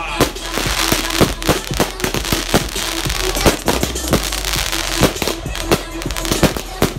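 Aerial fireworks display: a rapid, irregular run of bangs from shells bursting overhead, several a second and loud.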